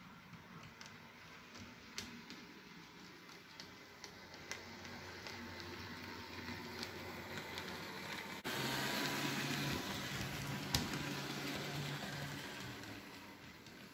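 HO-scale model train running: a low motor hum with scattered small clicks of wheels over the rail joints. About eight and a half seconds in the sound switches abruptly to a louder, closer running hum, which fades near the end.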